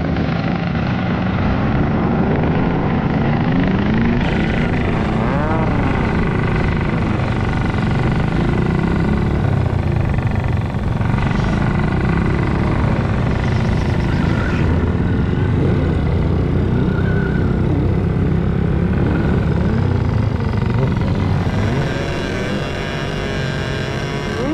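Mini motorcycle engine running and revving up and down as the bike is ridden, with a steady low rumble under it.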